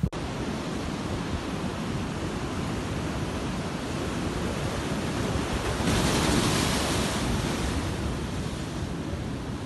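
Heavy storm surf breaking against a rocky shore: a steady rush of waves and wind, with one wave crashing louder about six seconds in.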